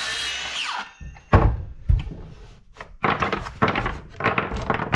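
Makita cordless circular saw spinning down after a cut, its whine falling away within the first second, then a run of wooden knocks and clatters as the saw is set down and small wood offcuts are moved about on the plywood bench; the loudest knock comes just over a second in.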